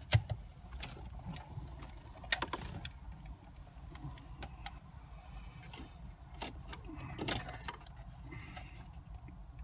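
BMW CCC navigation unit's sheet-metal case being slid by hand out of its dashboard slot: scraping and light metallic rattling, with a few sharp clicks and knocks, the loudest right at the start and about two seconds in, over a low steady rumble.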